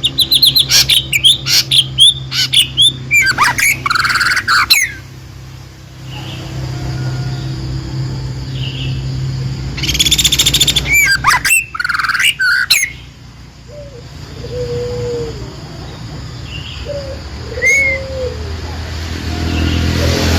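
Songbird chirping and twittering in loud, rapid, sweeping phrases for the first five seconds and again around ten to thirteen seconds, with softer, lower calls in between and later. A steady low hum runs underneath.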